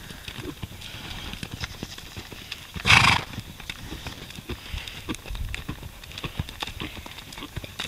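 Paint horse cantering on a dirt arena: a steady run of hoofbeats thudding on soft dirt, with a brief loud burst of hiss about three seconds in.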